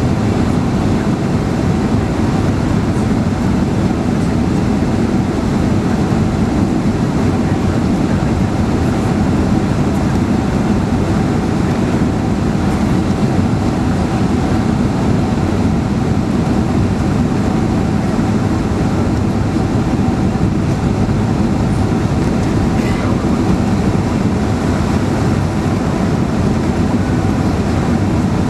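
Steady roar of a Boeing 767's engines and rushing air, heard from inside the passenger cabin, with a faint steady hum underneath.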